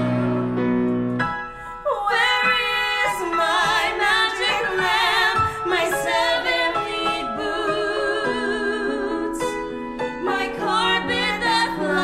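Two female voices singing a slow show-tune duet with vibrato over live piano accompaniment, with a short breath pause about a second and a half in.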